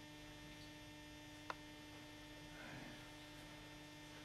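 Near silence: a steady low electrical hum, with one short click about a second and a half in.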